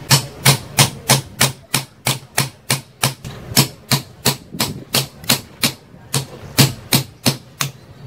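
Repeated hammer blows on an iron rod set against a ceiling fan motor's bearing, driving the worn, noisy bearing out of its housing. There are about three blows a second, with a short pause about six seconds in.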